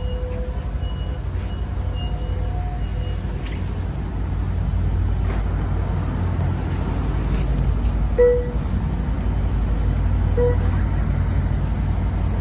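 Amtrak Capitol Corridor passenger train rolling slowly along the platform as it arrives and comes to a stop, a steady low rumble. Two short squeals come about eight and ten seconds in.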